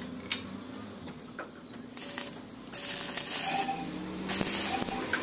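Stick-welding arc on iron pipe, crackling and hissing in short spells as the rod is struck, then more steadily from about four seconds in.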